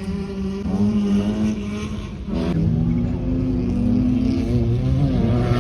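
Race cars' engines revving hard on a gravel track. About two seconds in, the engine note breaks sharply and the sound gets louder, with overlapping engine notes that climb in pitch.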